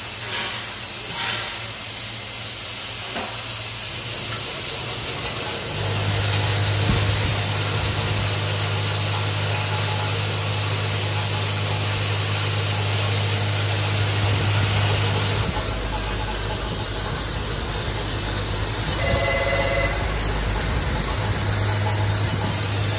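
Vibratory bowl feeder of a screw and bonded-washer assembly machine running: a low hum with bonded washers rattling through the bowl, over a steady hiss. The hum is louder between about six and fifteen seconds in, then drops lower in pitch.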